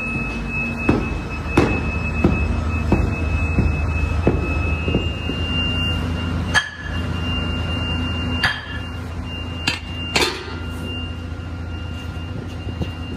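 Irregular metallic knocks and clanks, about ten in all, as a metal casting pattern is set down and shifted on a metal mould plate. They sound over a steady low workshop hum and a faint steady high tone.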